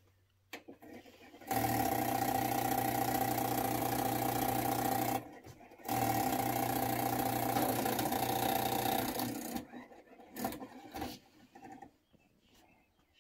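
Sony MDS-JE510 MiniDisc deck powering up: a click as the power button is pressed, then a loud steady mechanical whir with a low hum in two stretches of about four seconds with a short break between, followed by a few shorter mechanism sounds as the deck begins reading the disc's table of contents.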